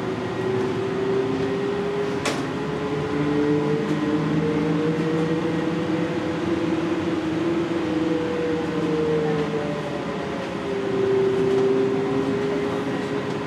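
NAW trolleybus's electric traction drive whining as the bus pulls along, heard from inside the bus: a steady hum of several tones that drift gently up and down, fuller from about three to nine seconds in. A single sharp click about two seconds in.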